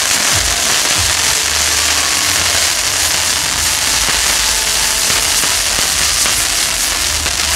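Fireworks castle burning: a dense, steady hiss and crackle of sparking fireworks, with a couple of low thumps in the first second.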